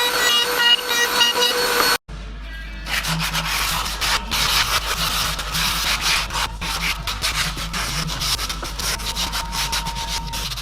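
Wood being sanded: a rough, scratchy rubbing made of quick strokes, over background music. It starts about two seconds in, right after a loud whining tone cuts off.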